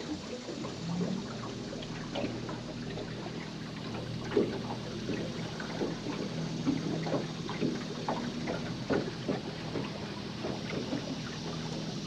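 Water lapping and trickling against an aluminum boat hull in many small irregular splashes and ticks, over a steady low hum.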